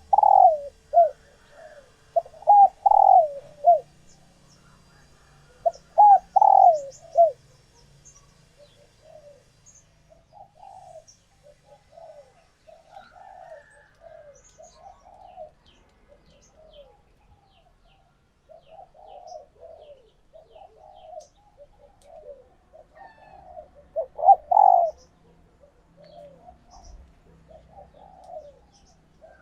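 Female spotted dove cooing in breeding condition, the soft 'gù' coo of a hen ready to lay. Loud grouped coo phrases come in the first seven seconds and again about 24 seconds in, with a long run of softer, shorter coos between them.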